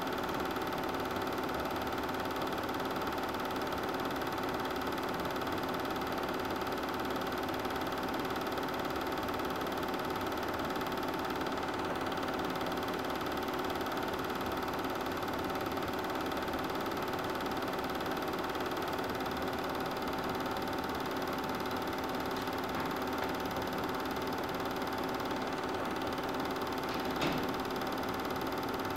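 Super 8 film projector running: a steady motor hum and film-transport whirr with several constant tones. A single brief click near the end.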